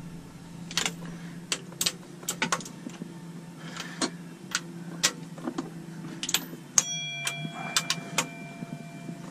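Socket ratchet clicking in short, irregular strokes as the water pump bolts are given their final tightening passes. A steady ringing tone joins about seven seconds in.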